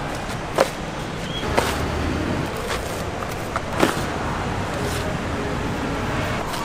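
Busy market ambience: a vehicle engine running steadily under a background hubbub, with a few sharp knocks and clatters.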